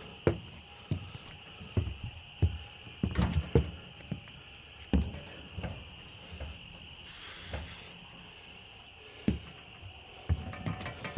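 Irregular knocks and thumps, sometimes two or three in quick succession, over a steady high hiss, with a short rush of noise about seven seconds in.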